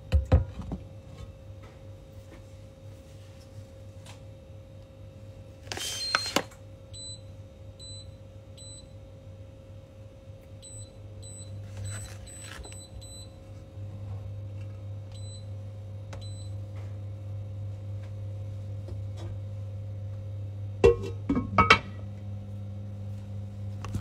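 Short electronic beeps in quick runs of two to four, over a steady electric hum that grows louder a little past halfway. There are a few knocks and clatters at the start, around a quarter of the way in and near the end.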